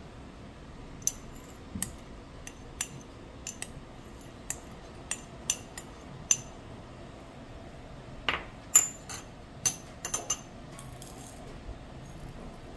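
Small metal spoon tapping and clinking against a ceramic dish and a glass teacup. About ten sharp clinks come roughly half a second apart, then a quicker run of louder ones from about eight to ten seconds in.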